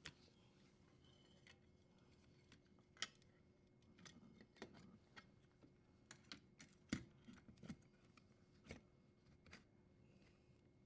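Faint, scattered clicks and taps of a dishwasher's plastic junction box being handled and hooked onto its metal support bar, with two slightly louder clicks about three and seven seconds in.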